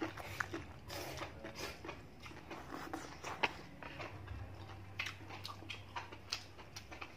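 Close-up eating sounds of a person chewing a mouthful of spicy Korean noodles: a scatter of short, wet mouth clicks, over a steady low hum.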